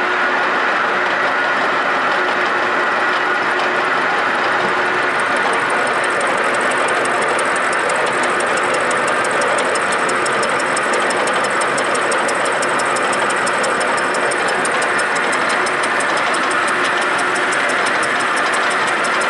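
Metal milling machine taking about a 2 mm cut under power feed: a milling head cutting metal over the motor's steady running. A fast, even ticking runs through the cut from about five seconds in.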